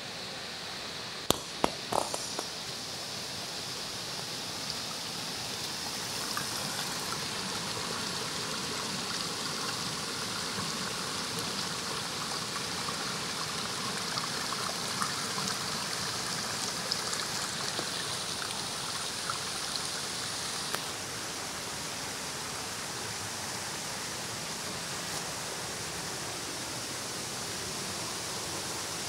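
A river in flood pours over a low concrete weir, making a steady rush of falling water. A few sharp clicks come about a second and a half in.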